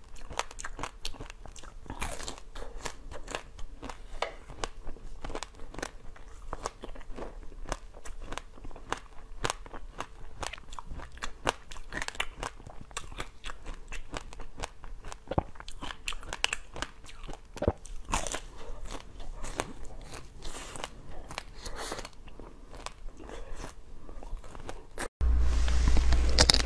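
Close-up crunching, biting and chewing of a frozen ring-shaped treat, a dense run of sharp crackles and cracks. Near the end a sudden cut brings a louder, noisier stretch of mouth sounds as a round green jelly ball is bitten.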